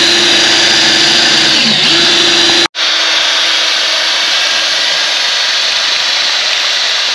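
Cordless battery-powered transfer pump running steadily, drawing water from a plastic drum through a garden hose: a continuous motor whine over a hiss. There is a brief dropout about two and a half seconds in, after which the motor tone is fainter under the hiss.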